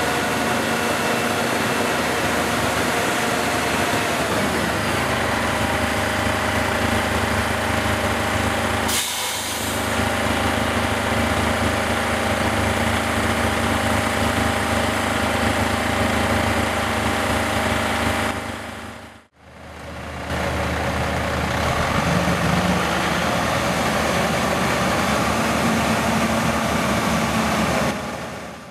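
Heavy diesel truck engine running steadily under load as the prime mover tows a house on a trailer up a slope. The sound briefly drops out about two-thirds of the way through, then the engine carries on.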